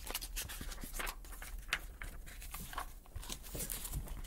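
Hardcover book being handled and opened, with paper rustles and light clicks of the cover and pages.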